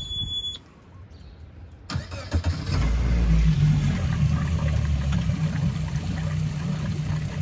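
A brand-new 90 hp outboard motor started for the first time. The key-on beep cuts off, then about two seconds in the starter cranks briefly and the engine catches and settles into a steady, quiet idle.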